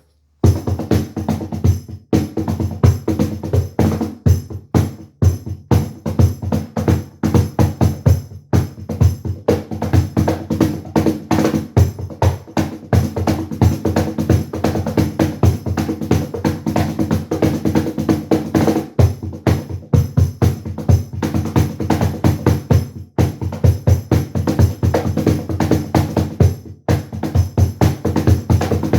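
Drum kit being played: fast, busy strokes on bass drum, snare and toms, starting about half a second in, with a few brief breaks between phrases.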